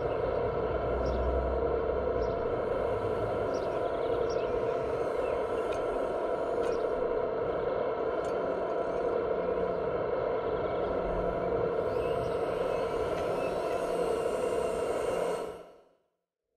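Electric hydraulic pump of an RC model truck crane running steadily with a hum and whine while the hydraulic arm moves, with a few faint ticks. It fades out about a second before the end.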